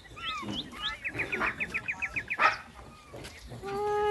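Bird calls: a few short falling chirps, then a fast run of short high chirps, about seven a second. Near the end comes one steady-pitched call that grows louder.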